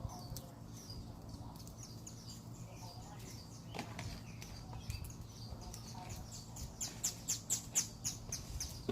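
Wet homemade slime being squeezed and worked by hand, giving a run of small sticky clicks and pops that come thicker and louder near the end.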